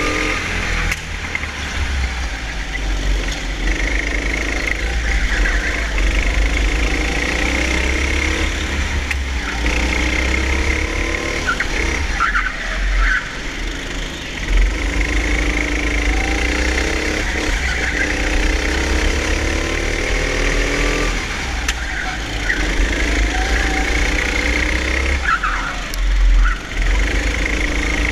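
Hire go-kart's engine, heard from the kart itself, climbing in pitch as it accelerates and dropping back again, several times over. Two short squeals cut through, about halfway through and again near the end.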